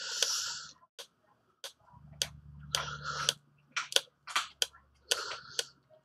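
Short scraping strokes and small clicks of a blade shaving down a soldered jumper wire on a circuit board, trimming where it sticks up too high. A faint low hum runs underneath.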